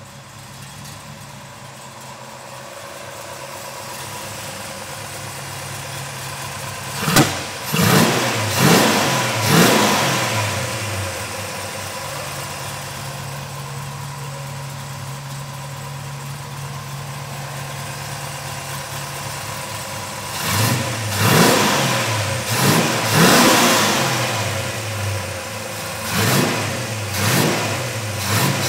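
1969 Dodge Charger R/T's 440 big-block V8 idling, then blipped in short sharp revs in three clusters: about four quick blips a quarter of the way in, another run of them about three-quarters of the way in, and a few more near the end.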